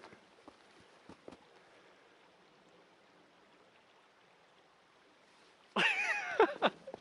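Faint footsteps scrambling over rocks and snow on a slope, a few scattered clicks that die away into quiet. About six seconds in comes a loud sound of about a second with several sliding, mostly falling pitches.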